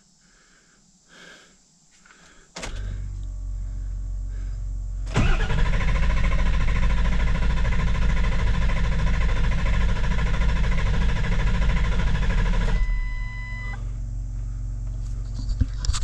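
Ford 7.3 Powerstroke diesel cranking on the starter for about seven seconds without firing, a hot no-start. A steady low hum comes on a few seconds before the cranking and carries on after it, and a short electronic chime sounds just after the cranking stops.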